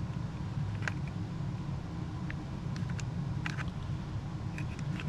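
A steady low background hum, with several light clicks and taps as small plastic parts of a backup camera monitor and its mounting bracket are handled and fitted together.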